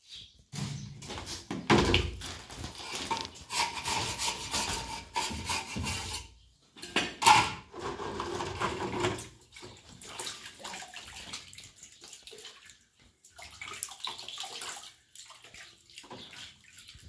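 Hands splashing and rubbing in a plastic basin of water, washing off wet plaster, with a couple of sharper knocks and splashes about two and seven seconds in.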